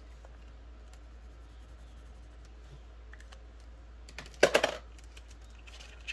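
Hands handling a laminated card and a clear plastic cash box on a table: a short clatter of plastic clicks and rustling about four and a half seconds in, over a faint low hum.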